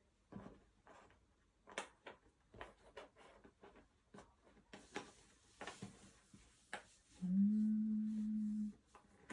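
Cardboard jigsaw puzzle pieces clicking and tapping as they are handled and pushed around on a table. Near the end comes a steady low hum that lasts about a second and a half.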